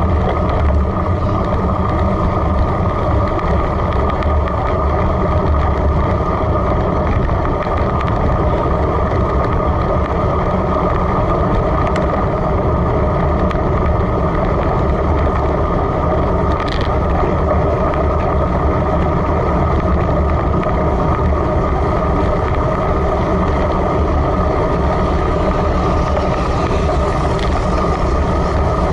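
Steady wind rush and road rumble on the microphone of a camera mounted on a road bike's handlebar, riding at about 23 to 30 km/h, with tyre noise from the wet road.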